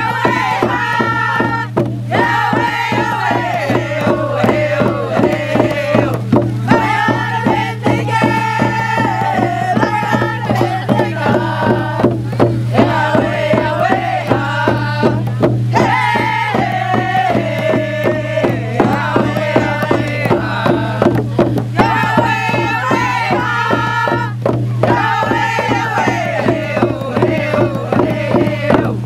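Women singing together to a steady beat of hand drums, in repeated phrases that start high and fall in pitch.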